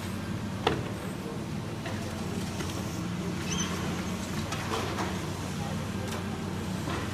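High-reach demolition excavator's diesel engine running steadily, with a sharp knock about a second in and a few fainter knocks later, as concrete is broken up.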